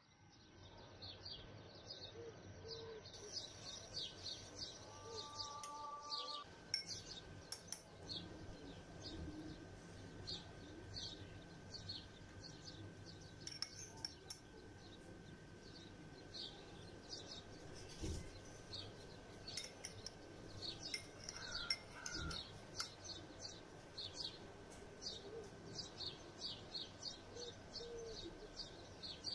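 Faint chirping of small birds: many short high chirps repeating throughout, with a thin steady high tone underneath.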